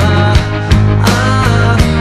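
Rock music with a slow, steady drum beat and held chords, no singing.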